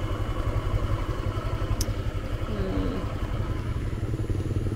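Motorbike engine running steadily with a low, rapid putter.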